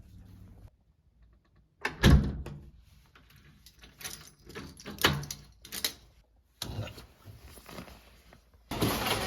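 A few knocks and thuds, one near two seconds in and two more around five to six seconds, with quieter handling noise between; near the end a louder steady background of a busier place starts abruptly.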